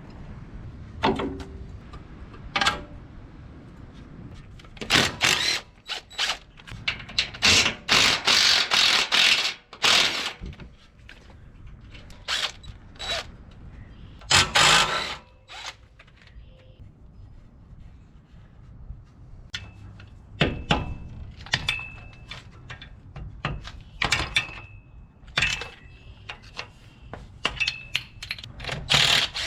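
Hand tools working on the nuts and pins of a truck's front suspension and axle: ratchet clicking and metal clanks and knocks, loudest in dense bursts about five to ten seconds in and again around fifteen seconds, with lighter scattered clicks after.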